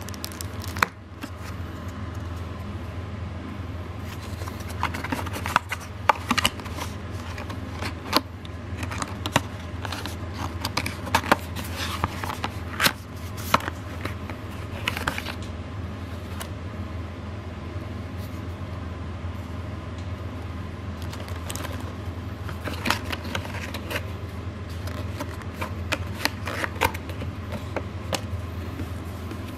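Hands handling a cardboard speaker box and a plastic-wrapped leaflet, with irregular scrapes, taps and rustles in clusters over a steady low hum.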